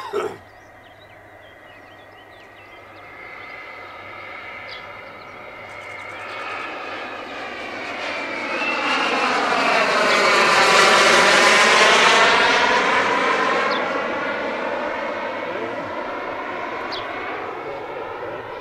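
Small turbine engine of a radio-controlled model jet making a flyby, growing louder to a peak about ten to twelve seconds in and then fading as it flies away.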